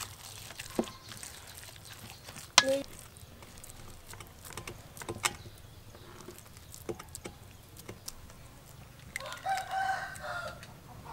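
A rooster crows once near the end, a pitched call of about a second and a half, over scattered light clicks and taps from hands working minced pork filling in a metal bowl and into bell pepper rings.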